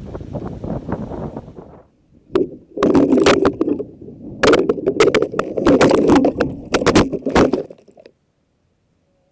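FPV freestyle drone crashing into brush: its spinning propellers thrash against branches and leaves in a loud, crackling clatter of rapid hits lasting about five seconds, then cut off suddenly as it comes to rest. Before the crash there is a brief rush of wind on the onboard camera's microphone.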